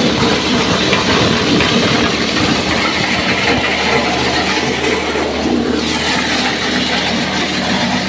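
Maize sheller driven by a 7.5 HP petrol engine running under load: the engine's steady note under a dense, continuous rattle of cobs being shelled in the drum.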